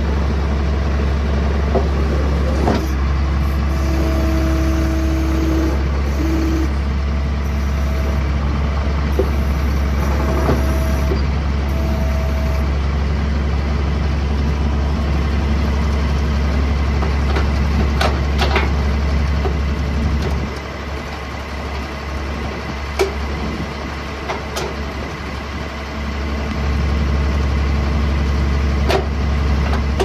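Skid steer engine running steadily, with a few sharp metal clanks. About two-thirds of the way through, the engine drops to a lower, quieter note for several seconds, then comes back up.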